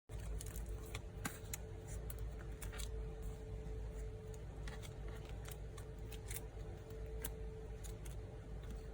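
Photocards and packing materials handled by hand: irregular light clicks, taps and crinkles, over a steady low hum.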